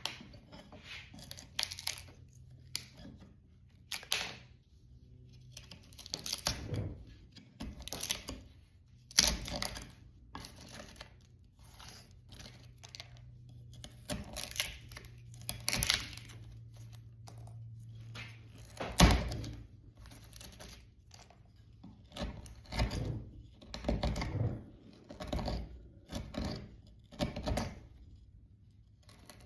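Bent-neck chisel prying and scraping bark and debris out of a knot and crack in a black walnut slab: irregular crunching, tearing scrapes and sharp cracks, the loudest crack about two-thirds of the way through. A faint steady hum runs underneath and stops around the same point.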